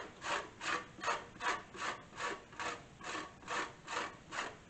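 Lime rind being rubbed against the fine side of a metal box grater to take off the zest: steady, even rasping strokes, about two and a half a second.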